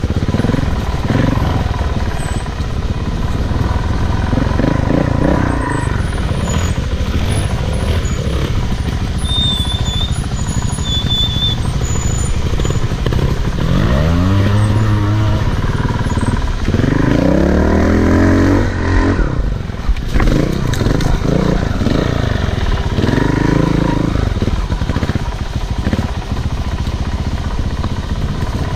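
Off-road motorcycle riding over a trail, with a heavy rumble throughout and the motor revving up and back down three times in the second half.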